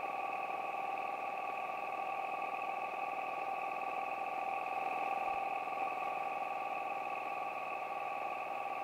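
1946 Aeronca Champ's engine and propeller droning steadily in cruise flight, with no change in pitch or power.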